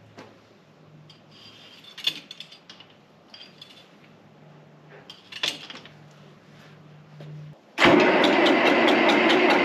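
Tractor engine cold-started: a few small clicks and rattles, then about eight seconds in the engine fires abruptly and keeps running loud and steady with an even, rapid beat.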